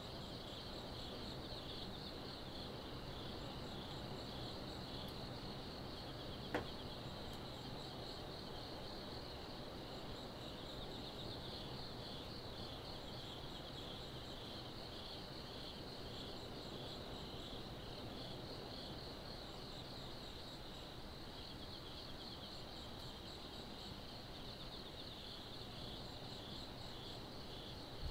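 Insects trilling steadily in a high, pulsing chorus over a low, steady distant hum, with a single sharp click about six and a half seconds in.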